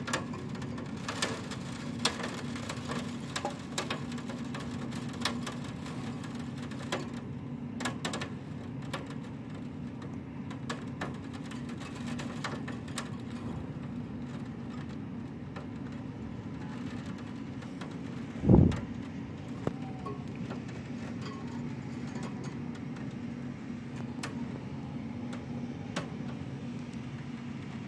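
Scattered sharp ticks of wind-driven rain striking the window glass over a steady low hum, with one heavy thump about two-thirds of the way through.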